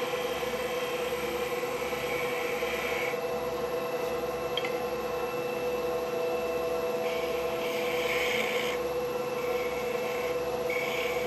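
Wood lathe running with a steady hum while a turning tool cuts a spinning black walnut handle. The hiss of the cut comes and goes in several short passes.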